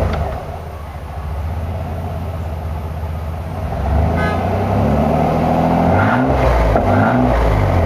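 1999 Chevy S10 Extreme running through its new Flowmaster exhaust, which exits ahead of the front tires. It idles steadily at first, gets louder about halfway through, and then is revved in a couple of short throttle blips, the pitch rising and falling each time.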